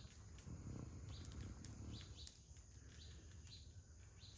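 Faint small-bird chirps, short high notes repeated several times a second, over a low steady rumble.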